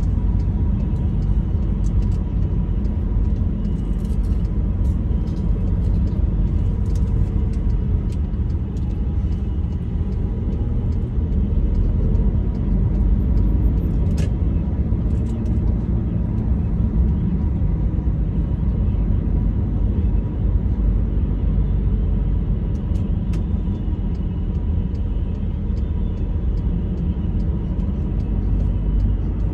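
Steady low rumble of a road vehicle in motion, with faint scattered clicks.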